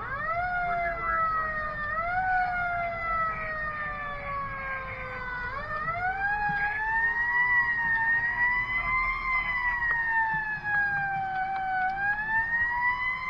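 Fire engine's siren wailing, heard from inside the cab while the truck drives on a call. Its pitch sweeps up quickly and slides slowly down several times, over a low engine and road rumble.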